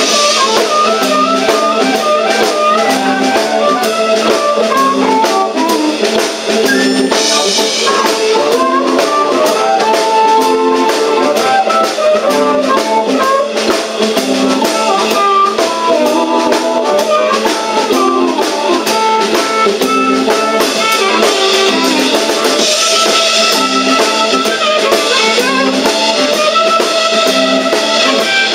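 Live blues band playing, with an amplified harmonica taking the lead over a steady drum beat.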